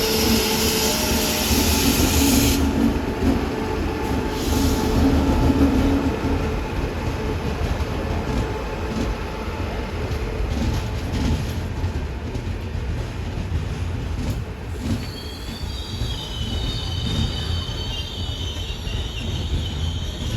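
Train rolling along the rails with a steady low rumble; about three-quarters of the way through, the wheels begin squealing high against the rails.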